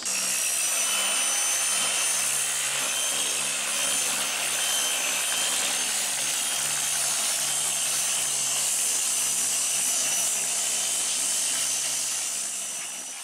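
Dual-action (DA) sander with 80-grit paper sanding down high spots on the car's body, a steady whine over a rough sanding hiss that eases off near the end.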